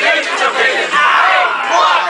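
A group of young men yelling and shouting together over one another, with no clear words.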